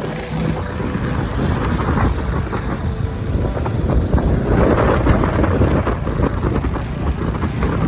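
Heavy wind buffeting the microphone, a dense rumbling rush that swells to its loudest about halfway through.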